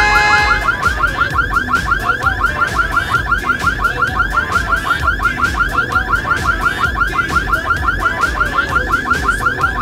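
Electronic car alarm going off, starting abruptly and sounding a fast, even warble of about six rising chirps a second.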